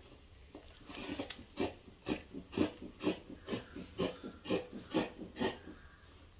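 Dressmaking shears cutting through printed fabric: a steady run of snips, about four a second, starting about a second in and stopping near the end.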